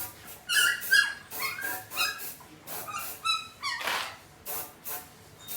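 A quick series of short, high-pitched animal yelps and whimpers, with a brief hiss about four seconds in.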